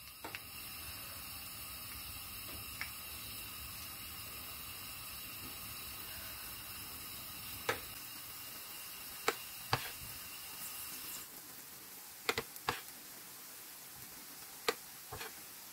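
Hot oil sizzling steadily in a frying pan as dollops of pumpkin fritter batter are dropped in to fry. Short, sharp clicks come now and then.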